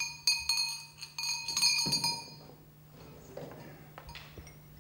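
Brass jingle bells on a mule's harness strap jingling as the harness is handled, a cluster of bright ringing and small clinks for about the first two and a half seconds, dying away. After that, only faint rustling and a couple of soft knocks as the harness is moved.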